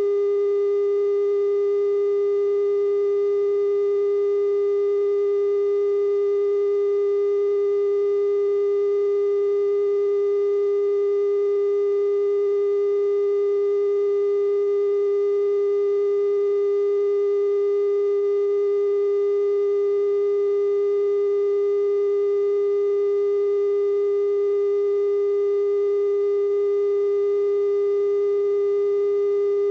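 Steady 420 Hz test tone, the bars-and-tone signal a TV station broadcasts after sign-off: a single unbroken pitch held at constant level, with faint overtones.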